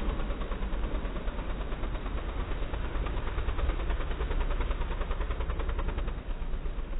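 Quad bike (ATV) engine running with a fast, even pulsing note as it drives through a shallow stream, with water splashing around the wheels.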